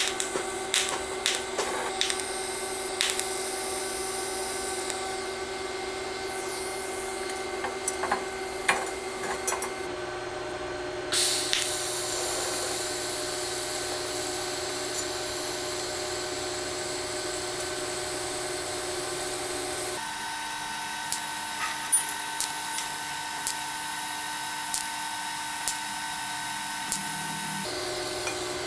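TIG welding arc on a steel turbo crossover pipe: a steady buzzing hum with a hiss, and scattered sharp ticks. The hum's pitch shifts suddenly about ten and twenty seconds in, and again near the end.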